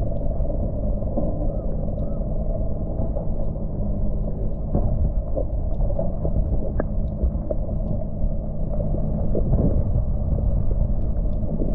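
Muffled water sound picked up by a submerged underwater camera: a steady low rumble of moving water, with scattered faint clicks and ticks.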